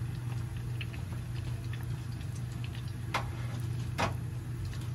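Breaded mackerel fillet deep-frying in oil in a small saucepan: a steady patter of small crackles and pops from the bubbling oil over a low hum, with two louder sharp clicks about three and four seconds in.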